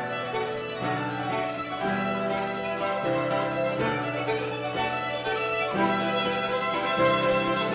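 Violin and digital piano playing a duet: a bowed fiddle melody over piano chords, with the low notes changing about once a second.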